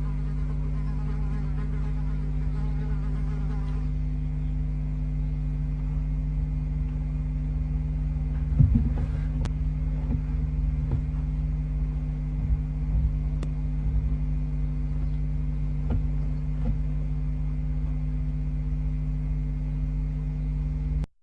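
Steady electrical mains hum and buzz on the barn owl nestbox camera's microphone, with a wavering higher sound for the first four seconds and a few scattered knocks and scratches from movement inside the nestbox between about eight and seventeen seconds in. The sound cuts off abruptly at the end.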